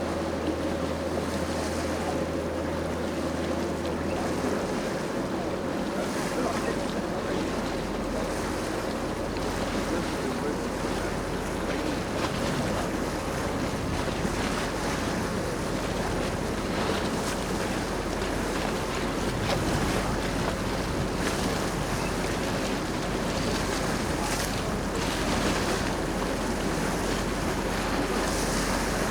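Tour boat under way: a steady wash of water along the hull and wind buffeting the microphone, over the low, even running of the boat's engine.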